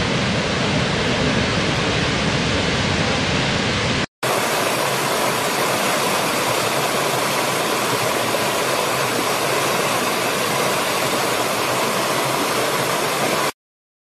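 Steady roar of a large waterfall with a deep rumble. About four seconds in it cuts to the brighter, hissier rush of a shallow stream tumbling over rocks, which stops abruptly near the end.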